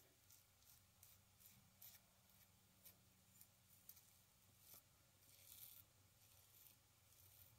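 Faint strokes of a safety razor scraping through lathered stubble, a dozen or so short scratchy passes at an uneven pace, one slightly longer pass about five and a half seconds in.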